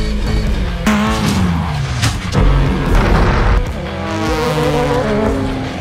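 Subaru WRX STI rally car's turbocharged flat-four engine revving hard, its pitch rising and falling as it accelerates and shifts, over background music.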